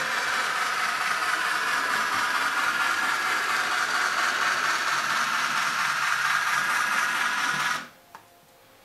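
Sound decoder in an N-scale steam locomotive playing its running sound through the model's small speaker, a steady rattling hiss, cutting off suddenly near the end.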